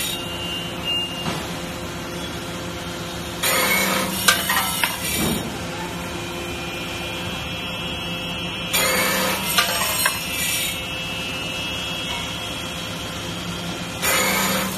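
Automatic cut-off machine running, its motor humming steadily while it feeds and saws metal rod, apparently brass, into short slugs. A harsh cutting noise comes about every five seconds, three times, each lasting a second or two.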